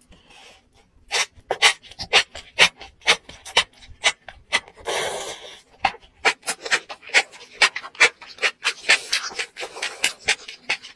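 Close-up chewing of spicy enoki mushrooms: an uneven run of sharp mouth clicks, several a second, with a brief hissing burst about five seconds in.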